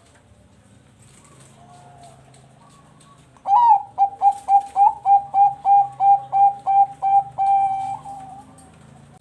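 Bangkok zebra dove (perkutut bangkok) singing. A faint coo comes first; about three and a half seconds in comes a loud run of about a dozen quick staccato coos, about four a second, ending on one longer held note that fades.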